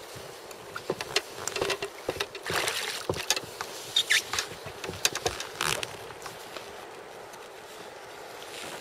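Rustling and light knocks of something being handled, dense for about five seconds, then only a faint steady background hiss.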